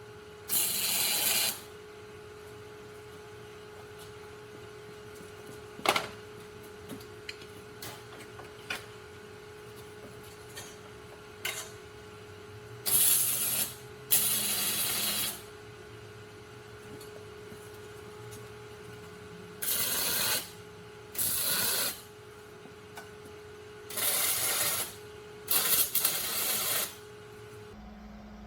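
Arc welder laying short tack welds on the steel crossbars of a flatbed frame: about eight separate bursts of crackling, each lasting a second or so, with pauses between them. A steady hum runs underneath, and there are a few sharp metal clicks between the tacks.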